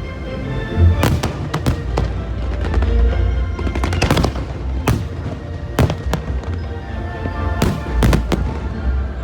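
Fireworks going off in a string of sharp cracks with a low booming rumble, about ten bursts in all, some in quick pairs. Music with steady held notes plays underneath.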